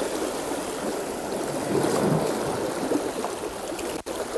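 Steady rushing of sea waves and wind on the shore, swelling slightly now and then; the sound drops out for an instant near the end.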